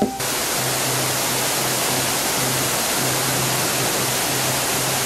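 Waterfall pouring over rocks into a pool: a steady rush of falling water that begins abruptly a moment in.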